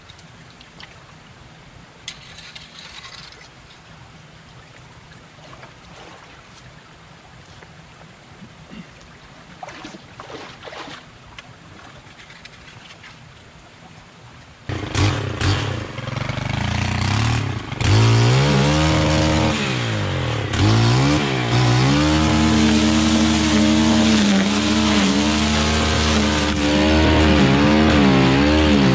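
Faint scattered rustles, then about halfway a Stihl FS 131 brush cutter's small four-stroke engine starts running loudly, its pitch rising and falling repeatedly as the throttle is worked while cutting grass.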